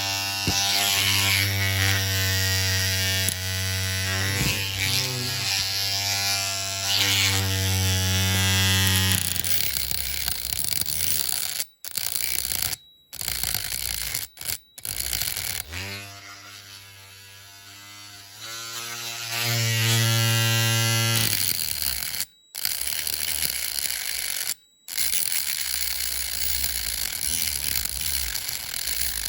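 Small hand-held electric rotary tool working on a diecast metal car body: its motor runs with a steady hum for several seconds, winds down, and after a few abrupt breaks spins up again and stops. A rougher rattling, scraping sound of the tool on metal follows near the end.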